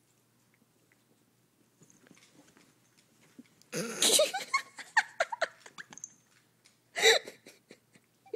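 A person laughing in two bursts: a longer run of giggles about four seconds in, then a short laugh near seven seconds.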